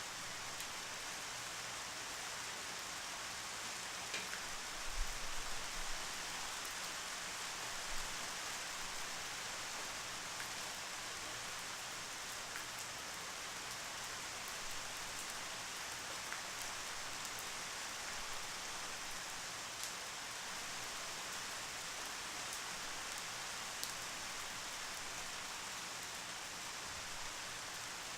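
Steady rain falling, an even hiss with scattered individual drops ticking through it. A few dull low thumps stand out about five to six seconds in and again near eight seconds.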